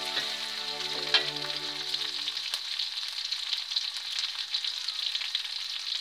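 Food frying in hot oil in a pan: a steady sizzle with many small crackles and pops.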